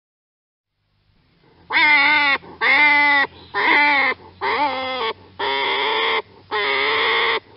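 An animal calling six times in a row. The calls are pitched, each under a second long, about one a second, and bend slightly up and down.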